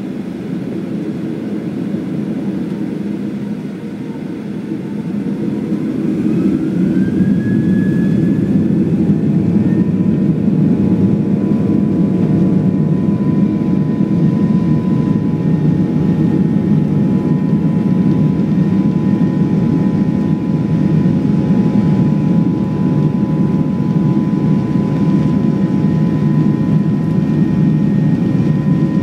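Jet airliner's engines spooling up to take-off power: a rising whine about five seconds in as the loudness builds, then a loud, steady engine noise with a high whine held over it.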